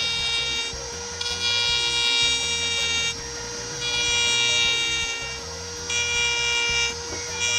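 Handheld power tool running with a steady, high, whining tone that sounds like a drawn-out 'nooo'. It eases off briefly about four times and then comes back.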